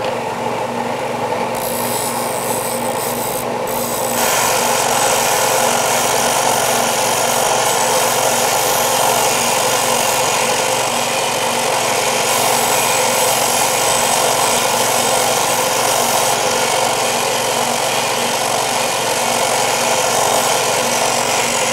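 Ryobi belt-and-disc sander running, rather noisy, with the steel end of a cut-down screwdriver held lightly against the abrasive: a steady grinding hiss over the motor hum. It grows louder about four seconds in and holds there while the tip of the chasing tool is rounded and smoothed.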